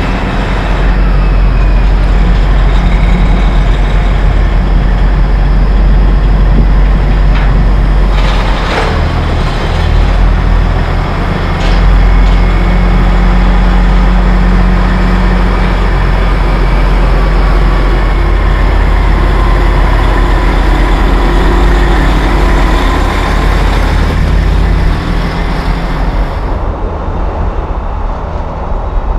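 Heavy diesel semi truck, a Peterbilt 389 with a Detroit Diesel Series 60 engine, running under way with an eight-car hauler trailer: a loud, steady low rumble. There is a short, sharp burst of noise about nine seconds in and another about twelve seconds in. Near the end the sound turns duller and slightly quieter.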